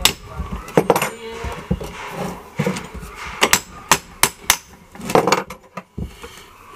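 Hammer tapping on the metal housing of a monoblock water pump: a series of light, irregular blows to loosen the front chamber from the pump body.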